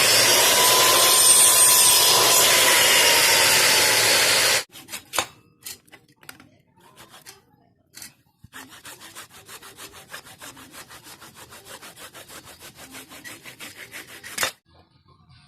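Workshop cutting sounds: a loud, even rasping noise for about four and a half seconds, then a few scattered knocks, then fast, rhythmic sawing or filing strokes for about six seconds that stop abruptly.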